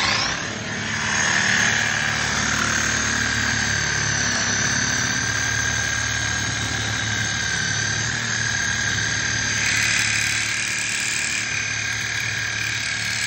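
Ronix power tool with a blade running steadily, a high-pitched whine over a low motor hum; the whine shifts a little about ten seconds in.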